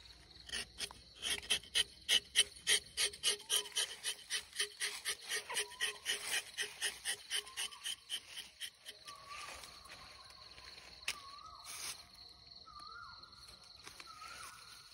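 Rubber-tapping knife shaving bark along the tapping cut of a rubber tree: a rapid rasping scrape, about three or four strokes a second, that stops about nine seconds in. Under it runs a steady high insect tone, and a short rising animal call repeats about once a second, each call a little higher than the last.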